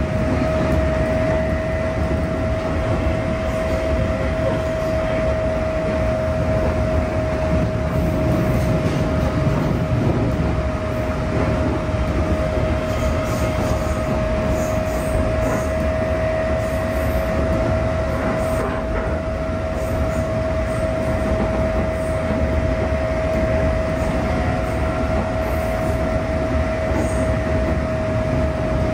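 Interior running sound of a JR East 211 series 0 electric train with field-added excitation control: the steady rumble of wheels and running gear, with a constant tone held at one pitch over it.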